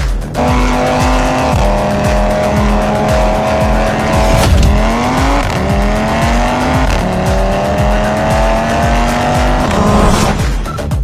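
Audi RS3's turbocharged five-cylinder engine accelerating hard. It holds a steady note at first, then from about halfway climbs in pitch through three gears, dropping back at each upshift. Electronic music with a steady beat plays underneath.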